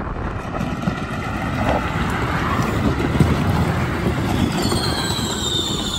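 Gravity racers coasting downhill, with wind rushing on the microphone and wheels rumbling over bumpy asphalt. Near the end a high whine slides down in pitch.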